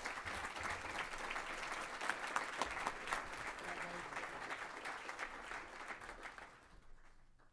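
Audience applauding, which starts at once, holds steady and fades out over the last couple of seconds.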